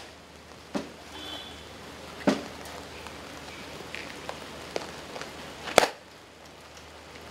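A few sharp knocks at irregular intervals, the loudest near the end, over a steady hiss of rain.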